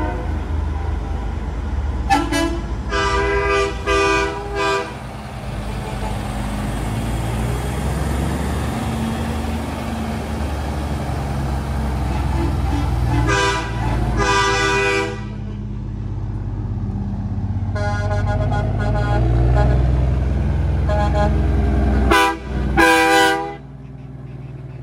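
Semi-truck air horns blowing in several loud bursts, some held and some chopped into quick repeated toots, over the steady low rumble of big-rig diesel engines rolling past.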